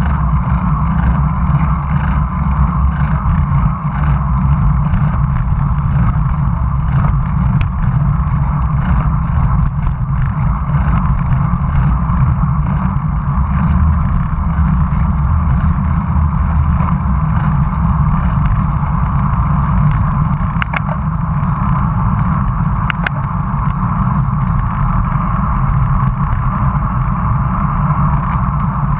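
Steady wind and road noise picked up by a bicycle-mounted action camera as a road bike rolls along tarmac: a heavy low rumble with a hiss above it, and a few faint ticks along the way.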